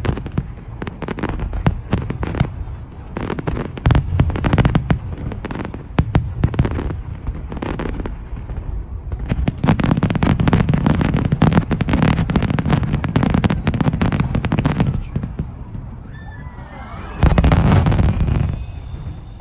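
Aerial fireworks bursting in rapid succession: sharp bangs over a rumbling low boom, with a louder, denser stretch of bursts near the end.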